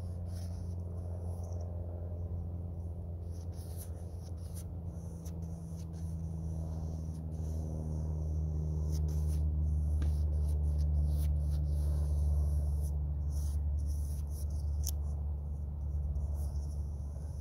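Paintbrush loaded with oil paint scraping and dabbing across a canvas in short, scratchy strokes. Under it runs a low, steady hum that swells a little past the middle and then eases.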